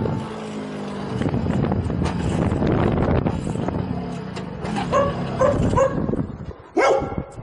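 Kreidler Florett's 50 cc two-stroke moped engine running, then fading away over the second half as it dies with its fuel tank empty. A dog barks several times near the end, the last bark the loudest.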